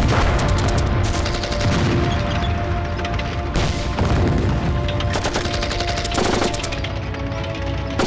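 Battle sound effects of rapid automatic gunfire and explosions, over dramatic background music.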